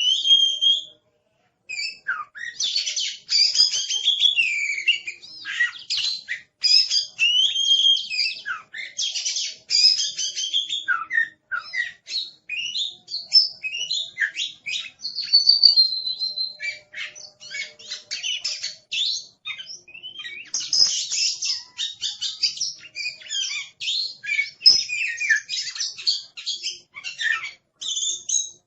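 Oriental magpie-robin (kacer) singing fiercely and nonstop: a loud, varied stream of rich whistles, sliding notes and rapid chattering note strings, with a brief pause about a second in.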